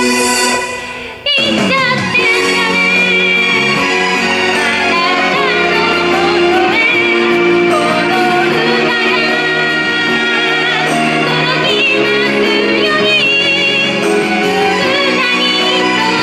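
A female vocalist singing a J-pop song live over pop accompaniment. About a second in the music briefly drops away, then comes back in on a sharp hit with a falling sweep.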